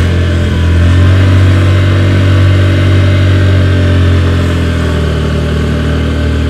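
Honda Verza motorcycle engine running steadily under way, a loud, even low hum that swells about a second in and eases off slightly toward the end.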